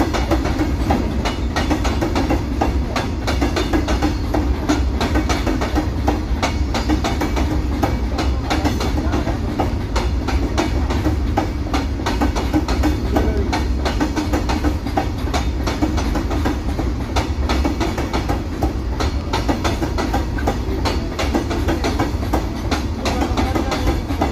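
Freight train of covered goods wagons rolling past, steel wheels clattering over the rail joints in a dense run of clicks over a steady low rumble.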